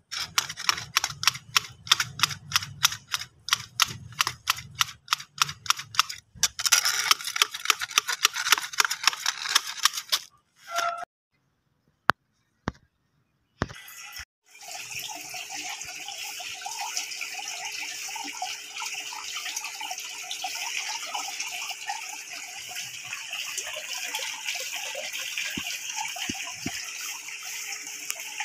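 Long-handled hedge shears snipping grass, sharp blade clicks about three a second, then coming faster. After a short near-silence there is a steady rushing noise.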